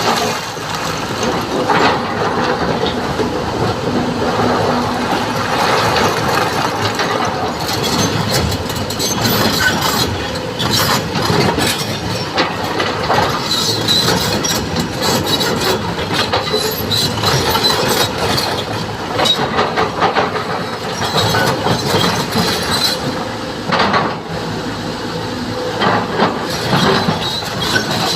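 Hydraulic excavator working, its engine running under a steady stream of metallic clanks and knocks.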